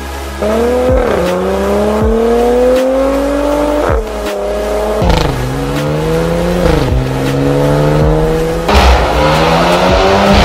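Porsche Macan 2.0T's turbocharged four-cylinder engine, through an Fi Exhaust valvetronic catback, accelerating hard. The pitch climbs and then drops at each of several upshifts. The sound grows louder and rougher near the end.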